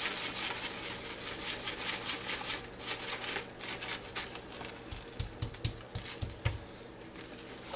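Coarse Montreal steak seasoning shaken from a large plastic shaker jar, the granules rattling in the jar and pattering onto a raw steak. A few soft, low thumps follow about five seconds in as a hand pats the seasoning into the meat.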